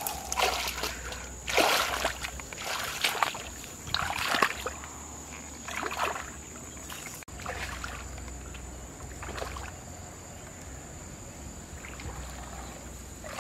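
Brush and branches rustling as a person pushes through a thicket, a loud rustle every second or so. After a sudden cut about seven seconds in, quieter sloshing of legs wading through knee-deep muddy floodwater.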